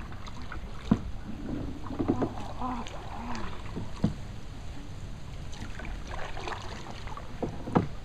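Canoe paddling on a river: the paddle works through the water over a steady low wash, with a few short sharp knocks of the paddle against the canoe's hull.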